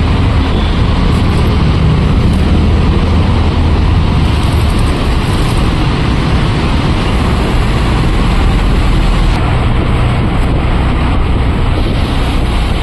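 Steady road and wind noise from inside a moving vehicle driving through a road underpass, with a strong low rumble.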